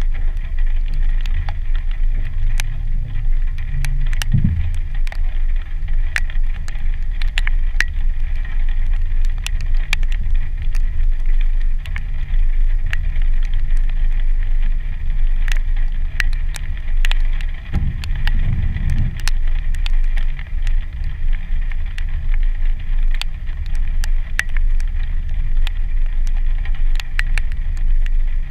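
2015 Jeep Wrangler Sport's 3.6-litre V6 running under way on a dirt trail: a steady low rumble with wind on the hood-mounted camera, swelling briefly twice. Frequent sharp ticks of raindrops tapping on the camera run through it.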